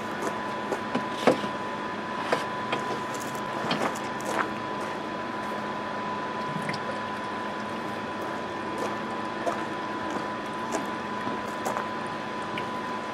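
Water running from a garden hose into a plastic tote, filling a washing-soda electrolysis bath. A few knocks and clicks in the first few seconds, the loudest about a second in, over a steady hiss and a faint constant tone.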